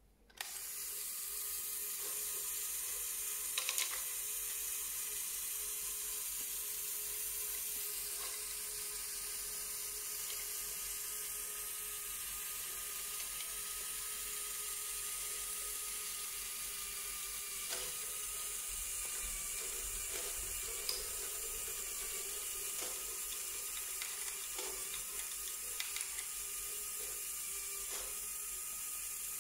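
Lego Technic great ball contraption switched on: its electric motor and plastic gear trains start whirring steadily about half a second in, with scattered clicks of the plastic balls and moving parts.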